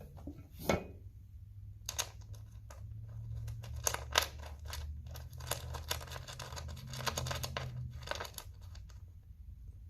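Hand work on small metal backrest hardware: a sharp knock about a second in, then irregular scraping and clicking as the thread-locked bolt, with its bushing and washer, is screwed into the backrest.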